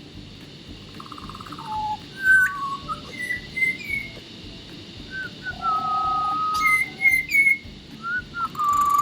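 Birds calling in clear whistled notes, some short and hooked, some held for about a second, with a few sharp, harsher calls among them. Underneath is a steady hiss of rain and river.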